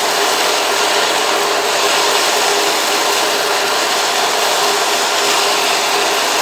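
Drill press driving a Wasp sander's worn 180-grit sanding belt, grinding the steel nicker blade of a dado plane as the blade is rotated against the belt: a steady grinding noise of abrasive on metal over the running motor.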